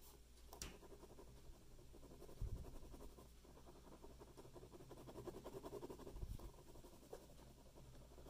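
A pen drawing on paper in quick, faint scratchy strokes, close to the microphone. There is a small click about half a second in, and a couple of soft low thumps, one near the middle and one later.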